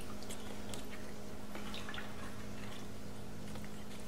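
Raw potato slices, wet from soaking in cold water, being laid by hand into a slow cooker's crock: faint, irregular soft clicks and wet squishes over a steady low hum.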